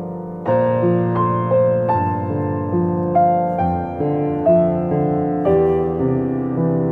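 Background piano music: a slow melody of single struck notes, two or three a second, each fading away, over low chords.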